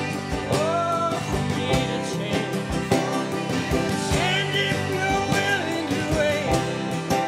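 Country band playing live: strummed acoustic guitar, drums keeping a steady beat, sliding notes on a resonator steel guitar, and a man singing.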